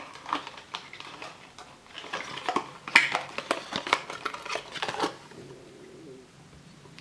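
A string of light clicks, knocks and clinks of hard objects being handled as a glass bottle of fountain-pen ink is picked up and set down on the table, the loudest knock about three seconds in.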